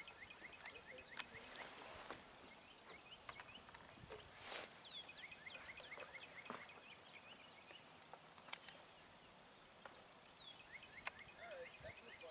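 Faint birdsong: several fast runs of short, high chirps and a few high whistles that slide downward, with occasional light clicks and knocks.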